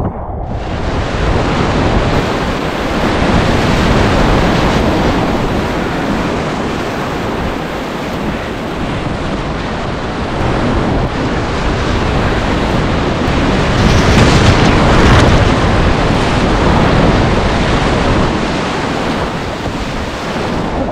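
Whitewater rapids rushing and splashing around a kayak, recorded right at the boat, growing louder about two-thirds of the way through.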